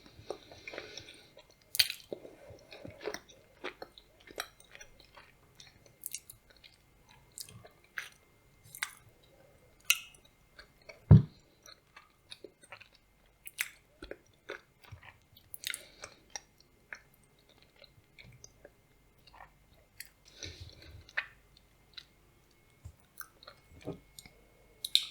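Close-up chewing of blueberry soufflé with nuts, with irregular short crunches and clicks from the mouth. A single low thump about eleven seconds in is the loudest sound.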